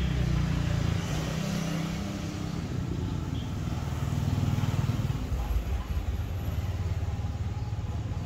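A motor vehicle's engine running, rising and falling in level and loudest about four to five seconds in.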